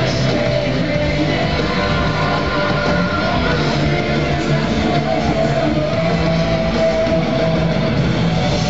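Loud rock-style show music with guitar playing over a laser show soundtrack, steady throughout.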